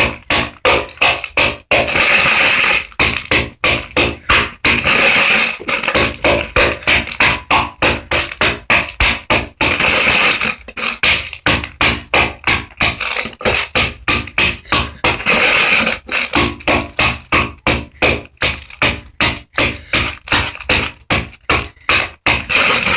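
Layer pellets and oyster shell being pounded into powder in a container: quick repeated strikes, about two or three a second, with a few longer grinding scrapes between runs of blows.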